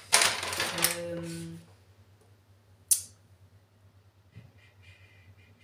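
Rustling handling noise with a short hummed 'mmm' from a woman thinking, then a single sharp click about three seconds in. After that there is only faint room hum.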